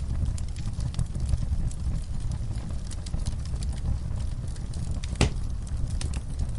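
Wood fire crackling: a low steady rumble of burning with many small snaps throughout, and one louder pop a little after five seconds in.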